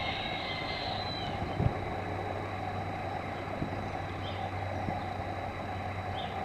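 A steady low mechanical drone with a low hum, and a single soft knock about a second and a half in.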